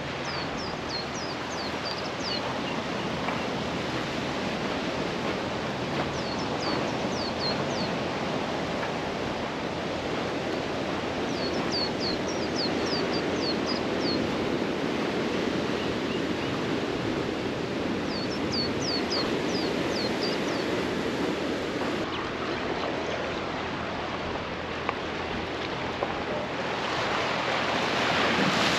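Ocean surf washing steadily, swelling louder near the end. A bird calls four times over it, each call a quick run of short, high, falling chirps.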